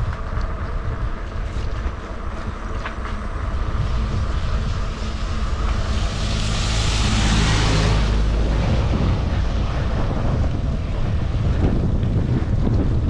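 Wind buffeting the microphone while riding along a mountain road, with a motor vehicle's engine and tyre noise growing, peaking about seven seconds in and fading as it passes.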